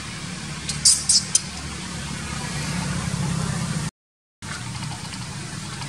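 Steady low motor-like hum under an even hiss, with three short high-pitched squeaks about a second in. The sound cuts out completely for about half a second in the middle.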